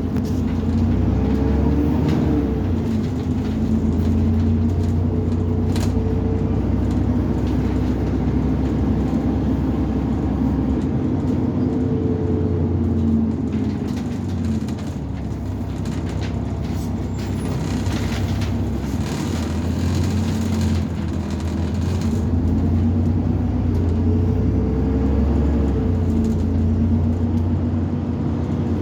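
Alexander Dennis Enviro400 double-decker bus engine running, its pitch rising and falling several times as it accelerates and changes gear, dropping back lower for a while in the middle.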